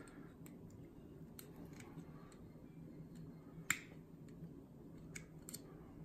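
Faint, scattered small metallic clicks of needle-nose pliers crimping the cable clamp on an XLR connector, with one sharper click a little past halfway.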